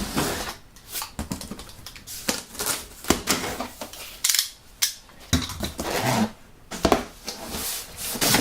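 Cardboard shipping box being handled and worked open: an irregular run of sharp clicks, knocks and scraping rustles.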